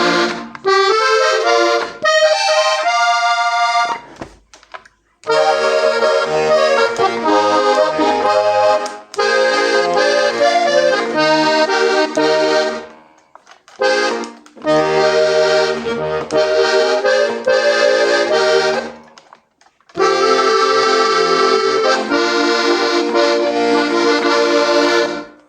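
Hohner Corona III three-row diatonic button accordion, in G, C and F, being played: a melody line, then several phrases of melody over pulsing bass and chord buttons, separated by short pauses.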